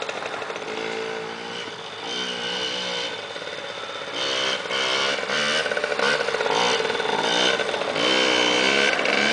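Three-wheeled ATV's small engine revving up and down over and over as it is ridden, its pitch rising and falling with the throttle. It gets louder from about four seconds in, with hard throttle as the front wheel lifts into a wheelie.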